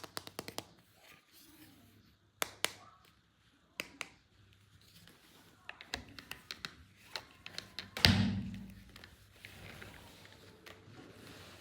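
Plastic toy pieces and die-cast toy cars being handled. There is a quick run of sharp clicks and taps, scattered single taps, then one loud thunk about eight seconds in.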